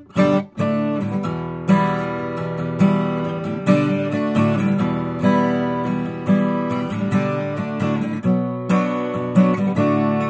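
Bourgeois OMS steel-string acoustic guitar, with an Adirondack spruce top and Madagascar rosewood back and sides, being played: single notes and chords are picked with sharp attacks about once a second and left to ring. There is a short break in the sound just after the start.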